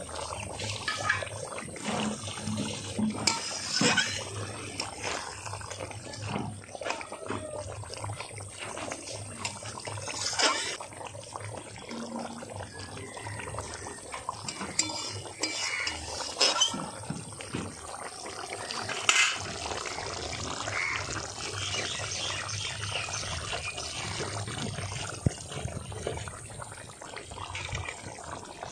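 Chicken curry boiling in water in an open pot, a steady bubbling noise, with several sharp clinks of a utensil against the pot. The curry is nearly cooked.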